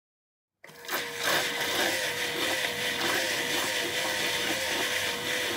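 Seaflo 500 GPH submersible bilge pump running under test, starting about half a second in: a steady, slightly wavering motor hum over a noisy rush, the pump still working.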